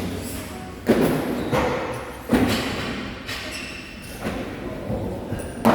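Gym equipment thudding onto the floor: about five heavy knocks a second or so apart, each with a short echo.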